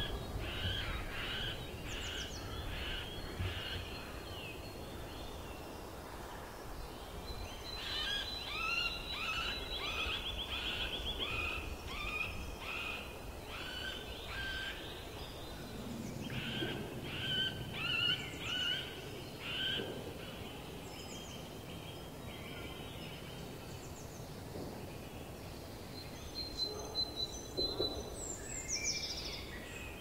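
Middle spotted woodpecker giving its nasal, quacking territorial call in slow series of about two notes a second, three bouts with pauses between.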